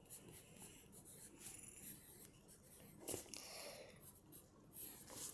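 Faint scratching of a drawing tool moving across a surface in short, irregular strokes, a little louder about three seconds in and near the end.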